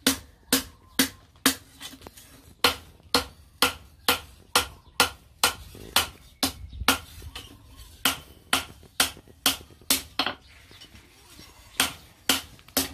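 Hand hammer striking a steel blade on a steel post anvil, blows with a short metallic ring at about two a second. The blows pause for just over a second near the end, then three more follow.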